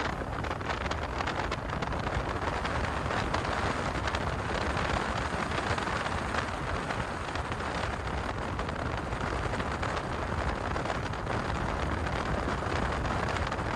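Steady wind noise buffeting the microphone over the running sound of a Bass Cat Puma STS bass boat crossing choppy lake water.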